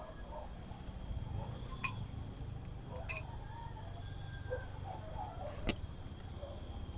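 Steady insect chorus in the background with faint recurring high-pitched calls. Three light, sharp wooden clicks come about two, three and nearly six seconds in, as thin wooden spindle sticks are handled and set down on a tree stump; the last click is the loudest.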